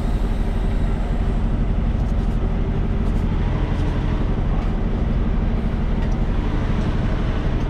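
Semi truck's diesel engine running steadily at low revs, a constant low rumble, as the rig is backed up.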